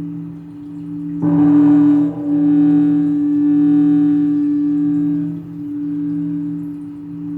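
A large temple bell struck once about a second in, over the deep hum of an earlier strike still ringing. The struck note's higher overtones die away within a few seconds while the low hum rings on, swelling and fading slowly.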